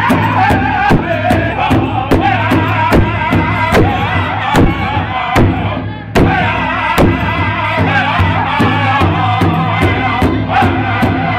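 Powwow drum group singing in unison around a big hide drum, the men striking it together in a steady beat of about two and a half strokes a second.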